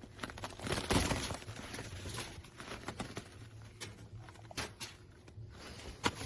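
Irregular light clicks and brief rustling, loudest about a second in, with a sharp click near the end.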